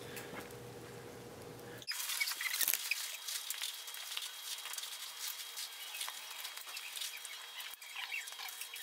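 Dense light rustling and small clicks of a loaded backpack's straps and buckles being pulled and fastened by the wearer, beginning about two seconds in after a low room hum.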